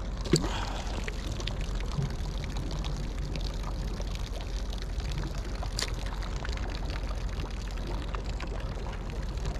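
Steady trickling, lapping water over a low rumble, broken by two sharp clicks: one just after the start and one about six seconds in.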